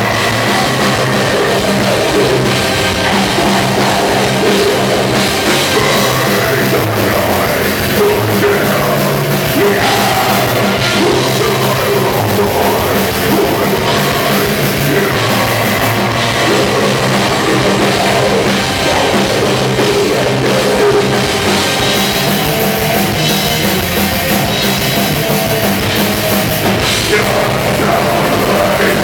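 Live symphonic death/black metal band playing loud and steady: distorted guitars and a drum kit, with a male vocalist screaming harshly into the microphone.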